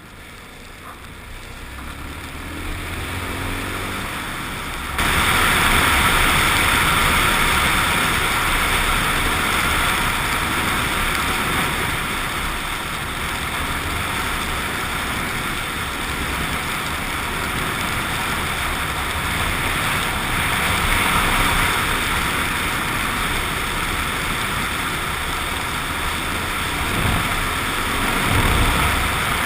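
Suzuki XF650 Freewind's single-cylinder engine and the rush of wind and road noise on a helmet- or bike-mounted action camera while riding. The sound builds over the first few seconds, jumps suddenly louder about five seconds in, and stays at a steady loud rush. Near the end the engine's pitch falls.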